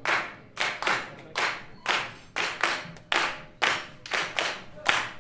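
A group of musicians clapping their hands together in time, a steady beat of about two claps a second with a few extra claps slipped in between. Each clap rings briefly in the room.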